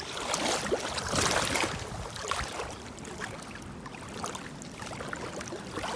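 Water splashing and sloshing, with small knocks of handling and a hiss of wind, as a caught largemouth-type bass is let go back into the water. The splashing is loudest in the first two seconds.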